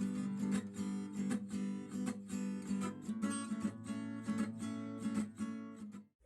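Background music: acoustic guitar strummed in a steady rhythm, cutting off suddenly near the end.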